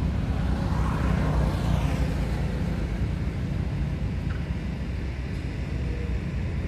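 Low, steady rumble of a motor vehicle passing nearby, swelling about a second in and fading away.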